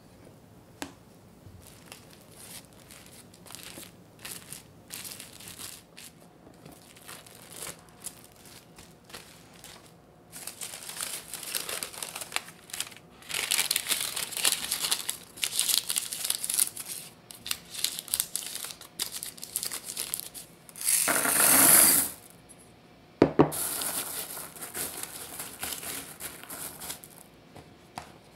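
First, light scraping ticks of a knife trimming tart dough against a steel ring. Then parchment paper crinkles and rustles as it is pressed into the tart shell. Near the end comes a louder short rush and rattle as baking beads are poured in and settle.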